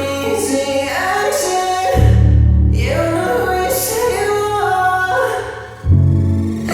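Song with a sung vocal line over sustained low bass notes.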